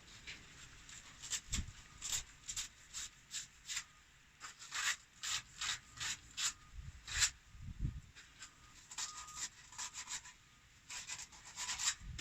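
Rapid rubbing and scraping strokes on the freshly cut end of a plastic pipe, deburring the cut edge so no burr is left before gluing. The strokes come in an irregular run, roughly two a second, with a couple of dull knocks of the pipe being handled.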